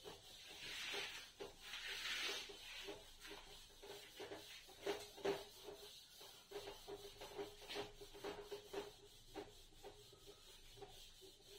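Faint rubbing of a duster wiping writing off a whiteboard, with scattered light taps and clicks against the board.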